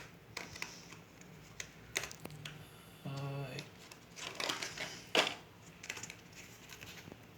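Light, scattered clicks and taps of small laptop parts and a screwdriver being handled while swapping an M.2 SSD, a few of them sharper, with a brief voice hum about three seconds in.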